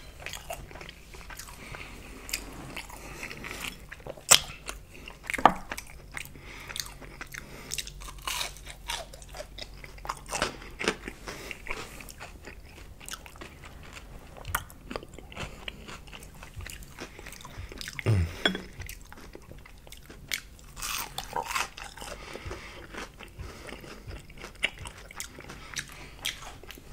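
Close-miked ASMR eating: biting and chewing crisp battered fried zucchini, with sharp crunches and wet mouth clicks at irregular intervals. A few louder crunches stand out.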